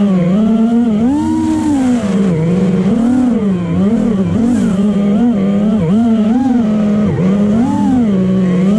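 FPV racing quadcopter's brushless motors and propellers whining, the pitch rising and falling about once or twice a second as the throttle is worked through banks and flips.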